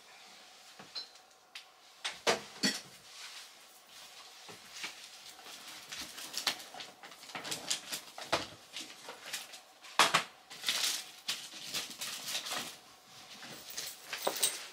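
Scattered clicks, knocks and rustles of small objects being handled and set down, with a sharp knock about two seconds in and a louder one at about ten seconds.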